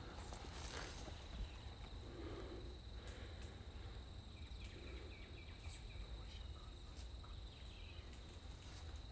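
Soft footsteps on pine-needle litter while walking through pine woods, over a steady high insect buzz. A quick run of about eight short high chirps comes a little past halfway.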